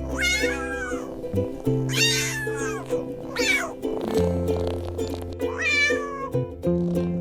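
A cat meowing four times, each a drawn-out wavering cry, over background music of steady held chords and bass notes.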